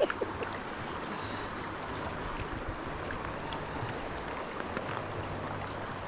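Steady rush of flowing river water, an even hiss with no separate splashes standing out.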